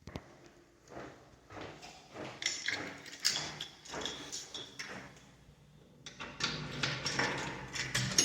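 Irregular clatter of knocks and clicks, thinning out about five seconds in and then growing denser and louder over the last two seconds.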